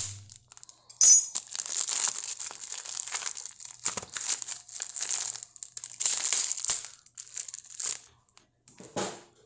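Plastic wrapping on a microwave popcorn pack crinkling and tearing as it is handled and cut open, on and off with short pauses.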